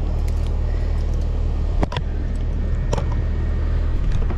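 A machine running with a steady low rumble, with a couple of sharp clicks about two and three seconds in.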